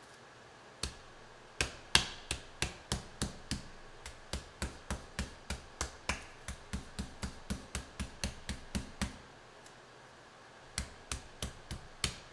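Metal meat mallet pounding raw chicken breasts flat through plastic wrap on a plastic cutting board: quick strikes at about three a second, a pause of nearly two seconds, then a few more strikes near the end.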